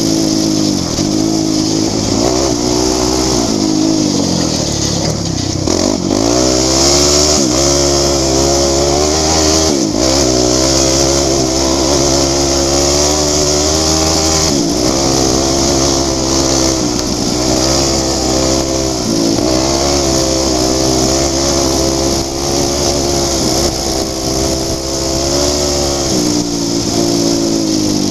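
Sport quad (ATV) engine running hard at speed, its pitch dropping and climbing again several times as the rider shifts gears and works the throttle. A steady hiss runs over it.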